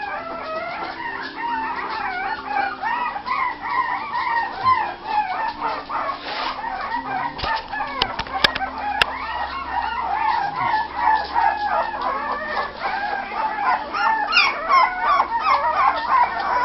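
A litter of young Kerry Blue terrier puppies whining and squeaking, many small voices overlapping continuously, with a few sharp clicks about halfway through.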